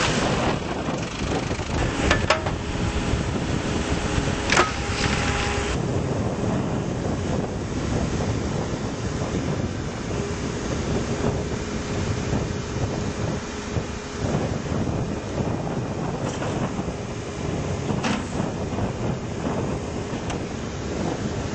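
Terex TX760B backhoe loader's diesel engine running steadily, with wind buffeting the microphone. A few sharp knocks come in the first five seconds.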